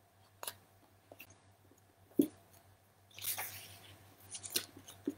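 Soft handling sounds of a paperback book being moved and lowered: a few light clicks and taps, a dull knock about two seconds in, and a brief rustle a little after three seconds.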